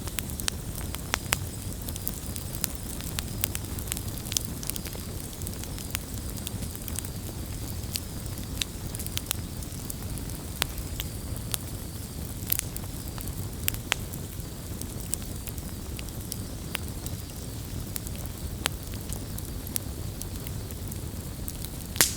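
Wood campfire burning, a steady low rumble of flame with irregular sharp crackles and pops, a louder pop near the end.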